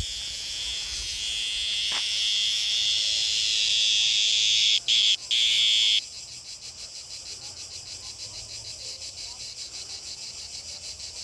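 Cicada buzzing while held in the fingers: a loud, high, continuous buzz that cuts out twice briefly about five seconds in. About six seconds in it switches abruptly to a quieter, rapidly pulsing buzz.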